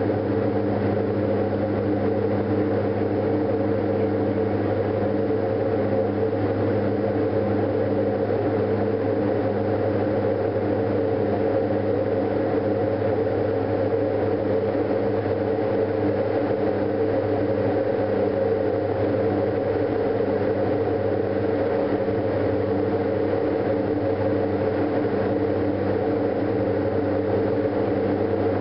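Diamond DA42 Twinstar's two engines and propellers droning steadily in flight, heard inside the cockpit, the pitch holding constant throughout.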